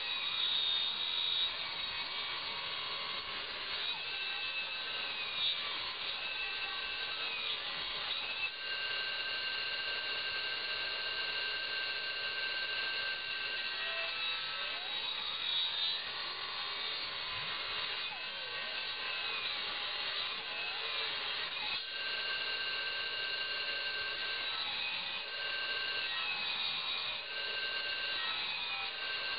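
Electrically driven, belt-driven circular saw blade spinning with a steady high whine while a log is fed through it and cut. The blade is extremely dull.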